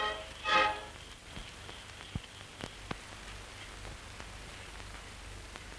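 Steady hiss and crackle of an old optical film soundtrack, with a few sharp clicks, after a short last burst of music about half a second in.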